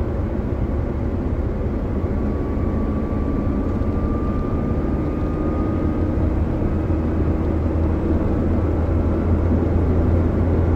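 Daihatsu Gran Max engine and road noise heard inside the cabin while cruising on a highway: a steady low drone. A faint thin whine rises slightly in pitch for a few seconds from about two seconds in.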